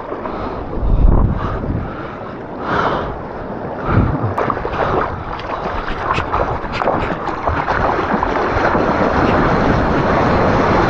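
Ocean water rushing and wind buffeting an action camera's microphone while surfing, with gusty thumps about a second in and about four seconds in, settling into a steady loud rush in the second half.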